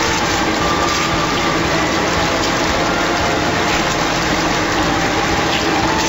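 Automatic food-washing machine running: a steady rush of churning, splashing water in its tank, driven by the machine's pump.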